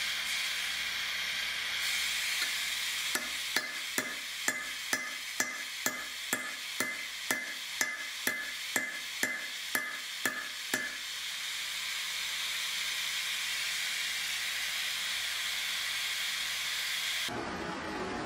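Oxy-fuel torch flame hissing steadily while it heats a steel knife tang for bending. In the middle, a run of about seventeen light, evenly spaced ringing clicks comes about two a second. Near the end the hiss stops abruptly and gives way to a soft rubbing.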